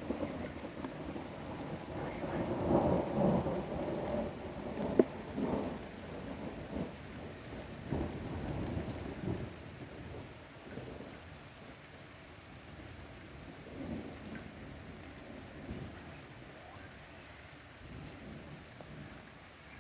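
Thunder rumbling over steady rain, loudest in the first half, with one sharp bang about five seconds in; the rumble then fades and the rain's hiss carries on.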